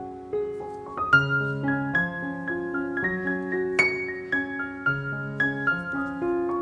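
Background piano music: a melody of struck notes over a lower line of notes that changes every second or so.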